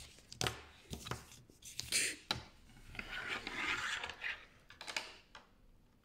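Small plastic fidget toys handled on a plastic-covered table: irregular clicks and taps, with a stretch of scraping and rubbing in the middle.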